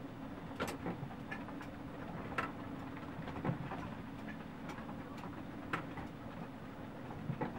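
A sailing yacht at anchor in strong wind, heard from inside the cabin: a steady low rush of wind with about six sharp, irregular knocks and ticks from the rigging and the boat working, the kind of night noise of halyards banging on the mast.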